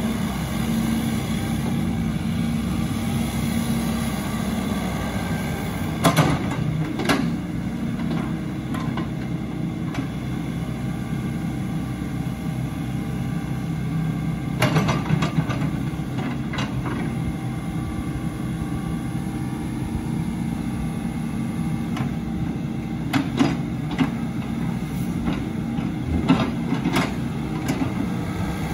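Case CX80 compact excavator's diesel engine running steadily while the machine slews and works its boom and bucket. Sharp metallic clanks come through it several times: a pair about six seconds in, a cluster about halfway, and several more near the end.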